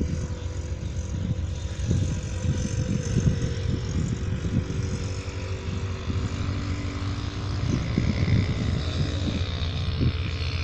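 Diesel locomotive engine running steadily as it pulls a passenger train out of the station, with a low, uneven rumble.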